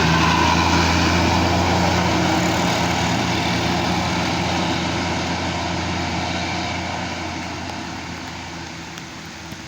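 Tour bus diesel engine running as the bus passes close by, a steady low hum that fades gradually as it drives away.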